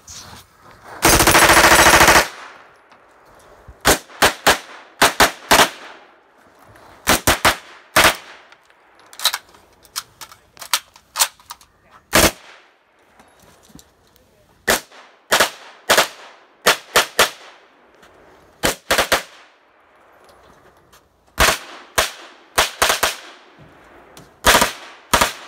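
MP5 submachine gun fired on full auto: one longer burst about a second in, then many short bursts of two to four shots spaced over the rest of the stretch.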